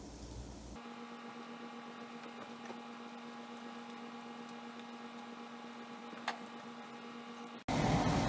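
A steady electrical hum over a faint hiss, with one sharp click about six seconds in. Near the end it cuts abruptly to much louder noise.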